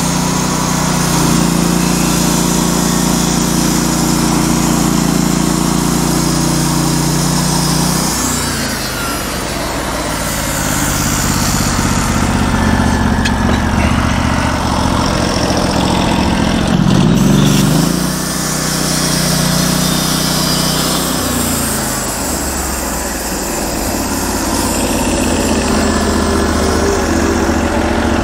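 Norwood LM portable bandsaw mill running through a cut, its small gas engine running steadily with the band blade sawing through a log. The engine note shifts in pitch a few times, about eight seconds in and again around two-thirds through.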